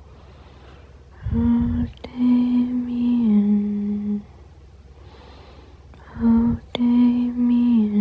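A voice humming a slow tune in two phrases, each a short note and then a long held note that steps down in pitch, with a pause of about two seconds between them.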